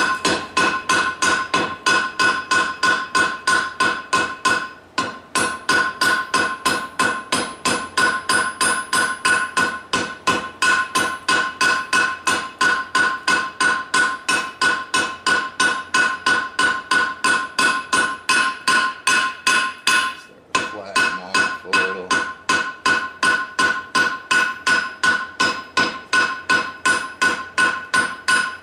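Hand hammer striking hot steel on the horn of an anvil in a steady run of blows, about three a second, each one ringing the anvil. The hammering breaks off briefly twice, once about five seconds in and again after about twenty seconds.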